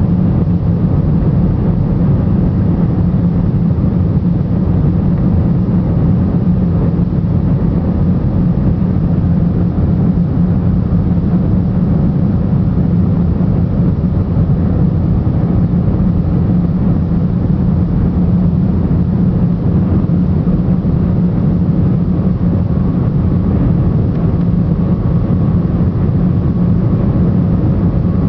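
Jet airliner cabin noise during takeoff: engines and airflow make a loud, steady low drone, with a few faint steady tones above it.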